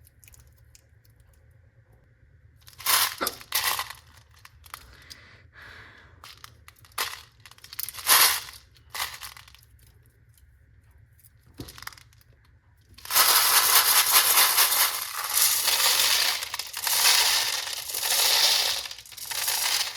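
Small hard-shelled candies dropping and clattering into a plastic container. First come a few separate crisp clicks and crunches spread over several seconds, then from about two-thirds of the way in a dense, continuous rattling clatter as candy is poured.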